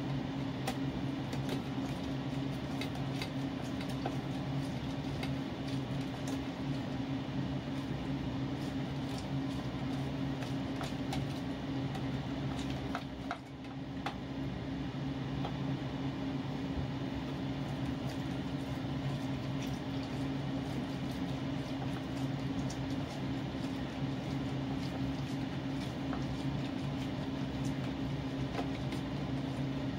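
A steady low machine hum dominates, with a brief dip about halfway through. Over it come faint squelching and small clicks as orange halves are twisted and pressed on a plastic hand reamer juicer.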